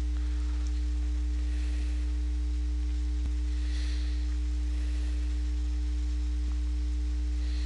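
Steady low electrical hum with a faint hiss over it, at an unchanging level: the background hum of the recording's audio chain.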